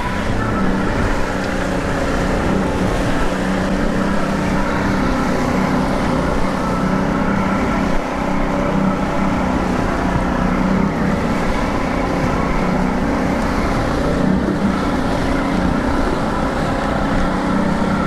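Outboard motor running steadily under way while high-speed trolling, a constant engine drone over the rush of water and wind on the microphone.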